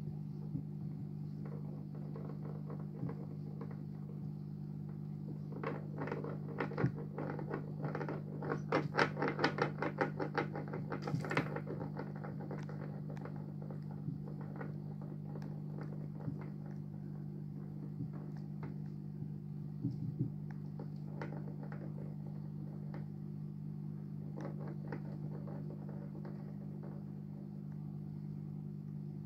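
A yellow-bellied slider nudging a stone around rocks in its aquarium: scattered clicks and taps of stone on stone, thickening into a rapid flurry of clicking from about six to twelve seconds in, over a steady low hum.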